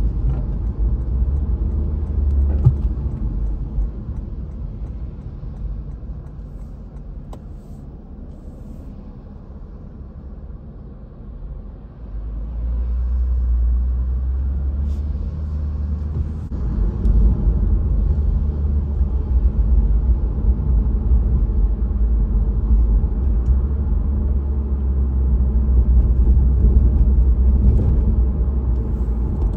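Low rumble of a car's engine and tyres on a wet road, heard from inside the cabin. It grows quieter for several seconds, then swells again about twelve seconds in and once more a few seconds later.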